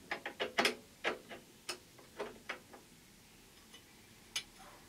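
Burner caps and pan supports being handled and set onto a two-burner black glass gas hob: a run of irregular light metallic clicks and clatters, then one more click near the end.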